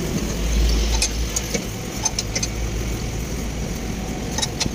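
Light metallic clinks, a few scattered short ones, as a truck leaf spring pack with its U-clamps and bolts is handled into place under the chassis, over a low rumble that fades after about three seconds.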